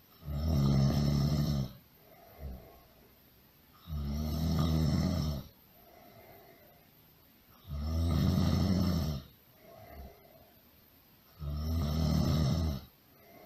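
Really loud, rhythmic snoring: four long, low, buzzing snores, each about a second and a half, coming about every four seconds, with faint breaths between them.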